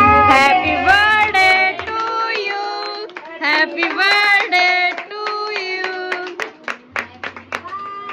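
A group of women and children singing a birthday song together while clapping along. Near the end the singing thins out and the irregular claps stand out.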